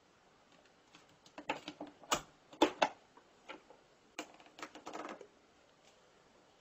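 A run of sharp plastic clicks and knocks from an electric rice cooker's lid being unlatched and swung open, loudest about two seconds in, with a second cluster of lighter clicks around four to five seconds.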